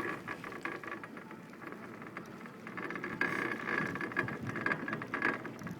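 Steady pattering and crackling noise from a chairlift ride through heavy falling snow, louder in the second half.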